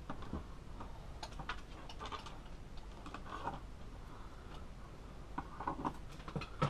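Irregular light clicks and taps from handling charging leads and clips while hooking a lithium cell bank up to a buck-converter charger, with a cluster of clicks near the end.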